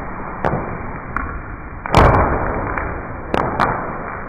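Zinc and sulfur powder mixture burning after magnesium-ribbon ignition: a rushing hiss broken by about six sharp pops as sparks fly, the loudest pop about two seconds in. The hiss dies down toward the end.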